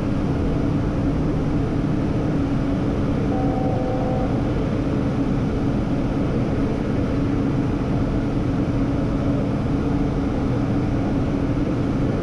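Steady in-flight cockpit noise of a Hawker 800XP business jet: the even rush of air and engine noise, with a constant low hum running under it.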